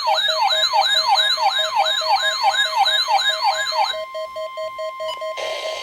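Weather radio receiver's alert siren: a fast whooping sweep repeating about three times a second over a pulsing beep. About four seconds in the sweep stops and the steady NOAA Weather Radio 1050 Hz warning alarm tone goes on, with radio hiss coming in near the end.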